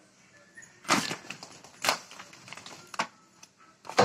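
Plastic food packet crinkling and rustling in short crackly bursts, about one a second.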